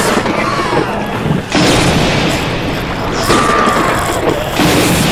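Storm sound effects: a steady rush of rain and churning water, broken by sudden booming crashes about a second and a half in and again near the end.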